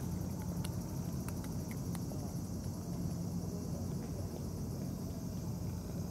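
Steady, pulsing insect trilling high up over a constant low outdoor rumble, with a few sharp little clicks in the first two seconds as the cats crunch their food.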